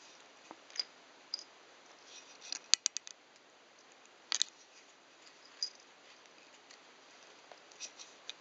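Scattered sharp clicks and small scrapes of an empty drinking glass lying on its side as a cat rubs its face and mouth against it, knocking it on the table. A quick run of four or five clicks comes about three seconds in, and another sharp one just after four seconds.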